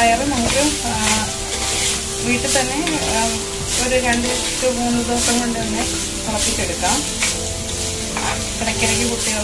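Vegetables sizzling as they stir-fry in oil in a clay pot, with a spoon stirring and scraping against the pot in repeated strokes: banana stem and sprouted moong dal being cooked dry as a mezhukkupuratti.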